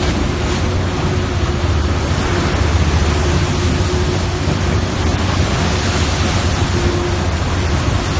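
A boat's engine running steadily under a constant rushing noise of wind and water, with a low drone and a faint steady hum.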